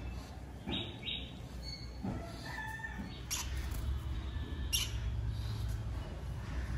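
Lutino peach-faced lovebird chirping: two short quick chirps about a second in, then a few fainter chirps, over a low steady hum. Two sharp clicks come about three and a half and five seconds in.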